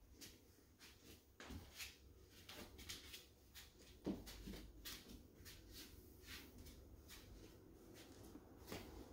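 Near silence with faint, irregular footsteps and soft knocks on wooden floors and stairs, with one slightly louder knock about four seconds in.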